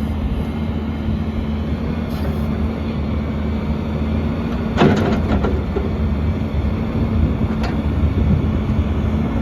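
Cummins diesel engine of an XCMG XE210CU hydraulic excavator running steadily, with one sharp knock about five seconds in and a faint click near the end.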